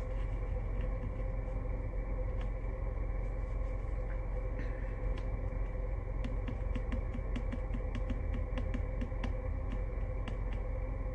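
Scattered light taps and clicks of fingers on a phone's touchscreen, over a steady low hum.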